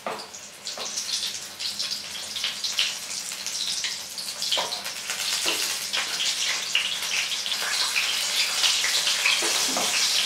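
Hot oil sizzling and crackling as pizza puffs deep-fry in a kadhai, growing louder toward the end. A few taps and scrapes of a perforated steel skimmer against the pan come near the start, around the middle and near the end.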